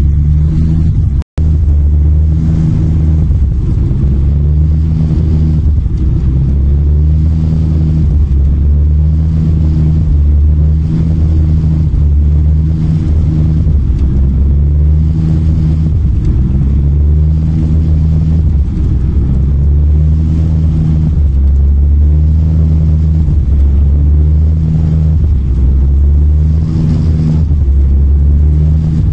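Loud, heavy low rumble of an Airbus A321's jet engines and airframe heard from inside the cabin, swelling and fading every second or two. The engines have lost power after swallowing a flock of gulls on takeoff. The sound drops out for an instant about a second in.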